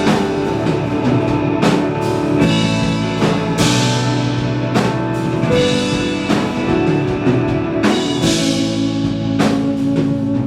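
Live band playing an instrumental passage between sung lines, with no vocals. A drum kit keeps a steady beat under sustained guitar and bass chords.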